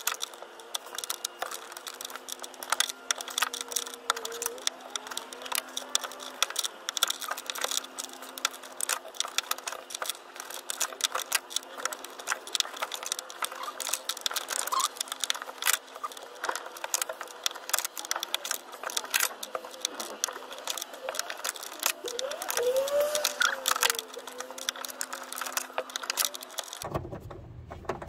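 Allen key clicking and scraping against a 5mm Allen-head bolt and the door's sheet metal as the bolt holding the outer door handle is wound out a short turn at a time, with many small irregular metallic clicks.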